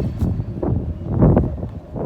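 Strong gusts of wind buffeting the microphone in uneven surges, over the low sound of a freight train passing.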